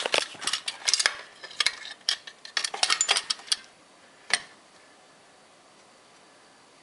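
Quick run of small metallic clicks and clinks from handling tools and a light in a car's engine bay, lasting about three and a half seconds, then one more clink a moment later before it falls to faint hiss.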